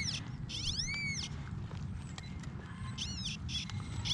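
XP Deus metal detector with a high-frequency coil in pitch-tone mode, sounding warbling tones that rise and fall in pitch as the coil sweeps over a target: once about a second in and again briefly near three seconds. The target turns out to be a big wad of tin foil.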